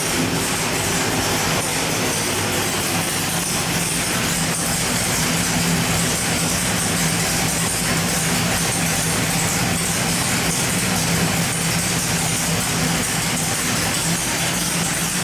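434 cubic-inch small-block Chevrolet stroker V8 running at a steady speed on an engine dyno: a loud, even rumble that holds one pitch without revving up or down.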